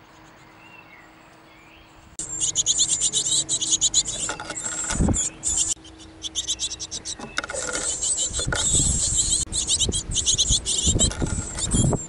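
Great tit nestlings begging: rapid, high-pitched chirping that starts suddenly about two seconds in and goes on, broken by irregular low thumps and rumbles.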